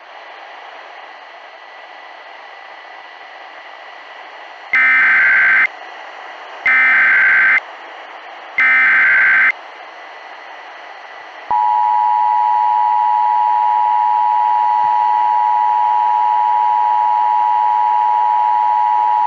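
Emergency Alert System tones over a steady radio hiss. First come three SAME header data bursts, each a bit under a second and about two seconds apart. Then the two-tone attention signal sounds as a loud steady dual tone held for about eight seconds. Together they signal that an emergency warning message is about to be broadcast.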